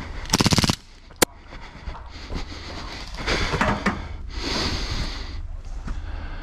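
Gas blowback gel blaster pistol, a We-Tech IREX Hi-Capa, firing a short rapid full-auto burst, followed about a second in by a single sharp crack.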